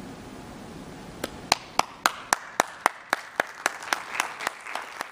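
Audience applauding. After about a second of faint room hiss, one person's sharp, evenly spaced claps start at about four a second, and more clapping joins behind them.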